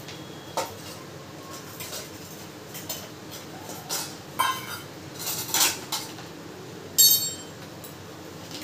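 Stainless steel bowls knocking and clinking against each other as cut guava is tipped and mixed: a scattered series of short clinks, the loudest about seven seconds in with a brief metallic ring.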